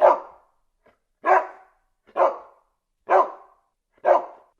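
A dog barking, five single barks about a second apart.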